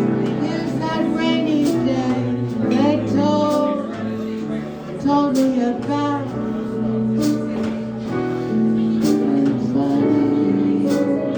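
Live jazz ballad: piano and guitar accompaniment with a female singer holding long notes with vibrato.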